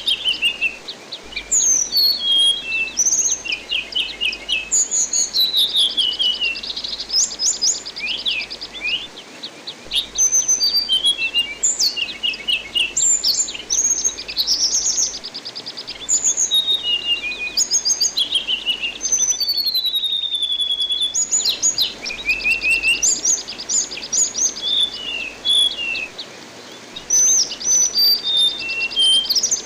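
Anis binbin thrush singing a fast, varied song of whistled notes, sliding phrases and rapid rattling trills, with hardly a pause. Under it runs a steady rush of flowing water.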